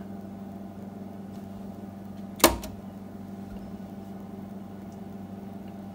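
Steady low electrical hum from the 1948 Hallicrafters TV chassis, powered up while its supply voltage is slowly raised, with one sharp click about two and a half seconds in.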